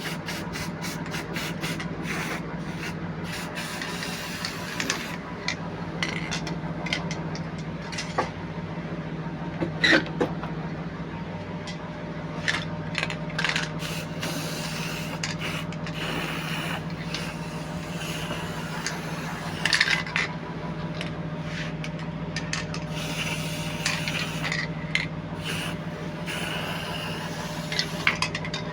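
Hand-tool scraping and rubbing on the rusty metal of an air-conditioner unit, in irregular strokes with a few light knocks, over a steady low hum.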